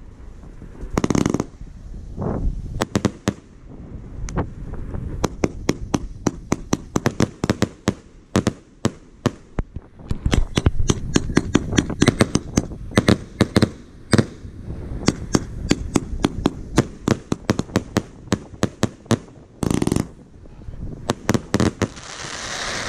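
Astroworld firework cake firing: a rapid string of sharp shots and bangs, several a second, densest through the middle, with longer hissing bursts about a second in and again near the end.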